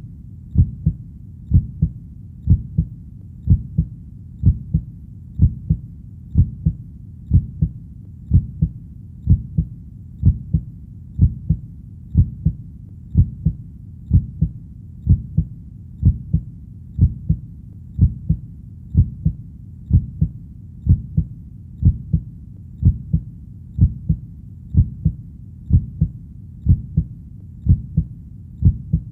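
Heartbeat: a steady, even lub-dub double thump, about one beat a second, dull and deep, with no other sound.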